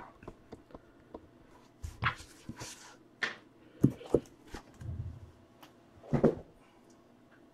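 Cardboard boxes handled and moved on a wooden desk: a few scattered light knocks and scrapes, with a dull thud about five seconds in.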